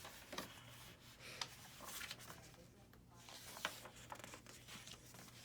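Faint paper rustling from a picture book being handled and its pages turned, with a few soft ticks.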